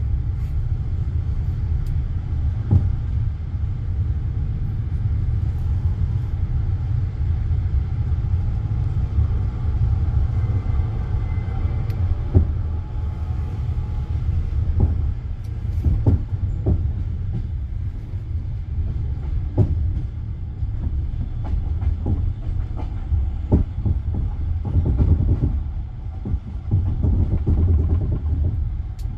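Passenger railway carriage running on the track, heard from inside: a steady low rumble with irregular sharp knocks of the wheels over rail joints.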